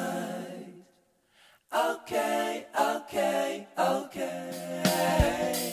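Background music: a song's sung vocals, with a held note fading out about a second in, a brief pause, then a run of short sung phrases.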